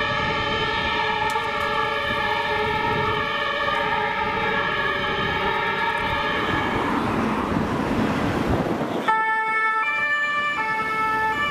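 German two-tone emergency sirens (Martinshorn) sounding together on two ambulances as they drive off. A car passes about seven seconds in. Near the end a single closer two-tone siren takes over, stepping between its two pitches about every 0.8 seconds.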